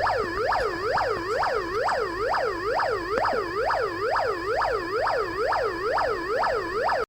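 Electronic police-siren tone generated by an Arduino: a buzzy, square-wave-like pitch sweeping rapidly up and down about three times a second in a steady yelp pattern. It cuts off abruptly at the end.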